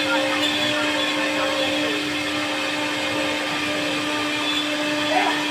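CNC wood router running, its spindle giving a steady whine over an even hiss as it carves wood.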